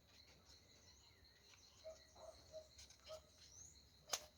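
Near silence with a faint background of chirping birds and a steady insect-like drone, and a single sharp click about four seconds in.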